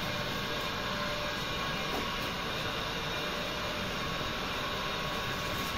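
Steady hiss of water running from a garden hose and splashing onto a wet animal and concrete floor.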